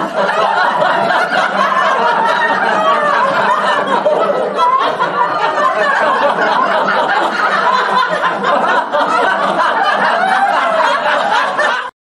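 A group of men and women laughing hard together, many voices overlapping without pause. The laughter cuts off suddenly just before the end.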